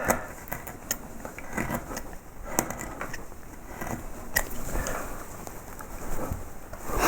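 Small woodcarving gouges cutting wood by hand: soft slicing and scraping with a few scattered small clicks as the background of a low-relief carving is pared back and its edges are set in.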